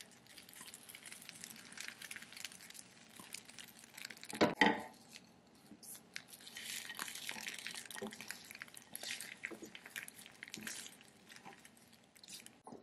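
Wooden spatula scraping and pushing an omelette around a nonstick frying pan, with the soft hiss of the egg cooking and many small clicks of handling. Two loud knocks about four and a half seconds in.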